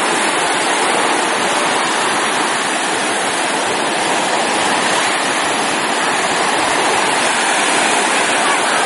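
Steady, loud rush of water: an even wash of noise that holds without rising or falling.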